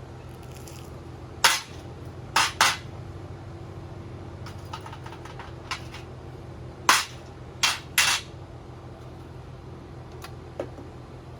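Sharp metal-on-metal knocks, about six loud ones in two groups of three, with a few fainter ticks, over a steady low hum.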